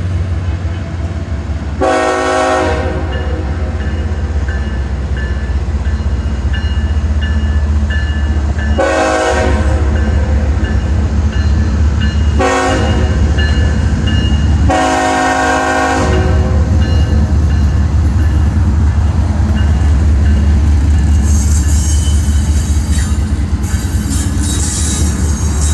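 Diesel freight train locomotives running with a steady low rumble and sounding the horn four times, long, long, short, long: the standard road-crossing signal. A higher hissing wheel noise builds near the end.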